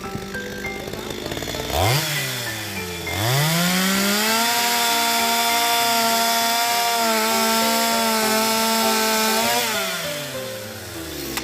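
Two-stroke chainsaw idling, blipped up and down about two seconds in, then revved to full throttle and held there for about six seconds while cutting through a log, before dropping back toward idle near the end.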